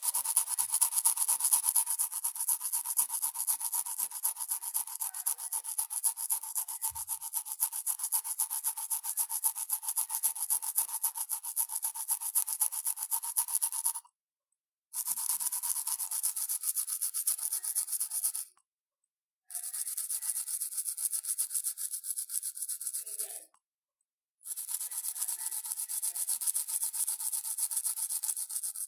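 Fingernails scratching facial stubble beside the mouth in rapid back-and-forth strokes, a rough rasp that imitates teeth being brushed. The scratching stops briefly three times: about halfway through and twice more toward the end.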